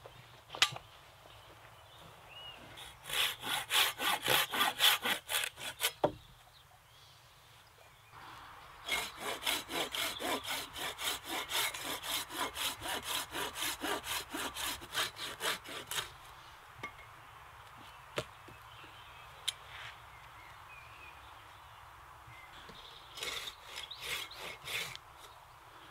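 Silky Bigboy 2000 folding pruning saw cutting a wooden branch to length by hand in three bouts of quick, even back-and-forth strokes with short pauses between. A single sharp click about half a second in.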